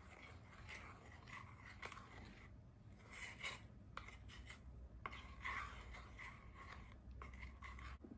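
Wooden spoon stirring milk and milk tea powder in a small saucepan, scraping faintly against the pan's bottom and sides in several runs of quick strokes with short pauses between.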